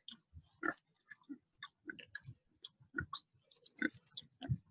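Pigs chewing and crunching chunks of watermelon with the rind on: a faint, irregular run of short crunches and clicks, heard over a video call.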